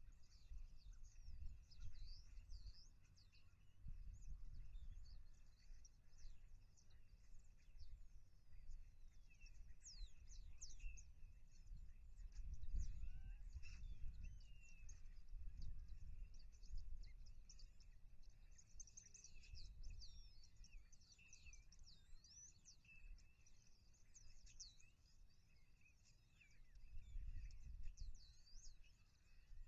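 Many small birds chirping in quick, overlapping high calls throughout, faint against a low rumble of wind or distant noise.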